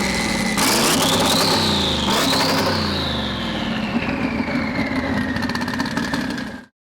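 Car engine revving up under acceleration, with a brief dip about two seconds in, then winding down slowly. A high whine rises and falls with the engine speed. The sound cuts off suddenly near the end.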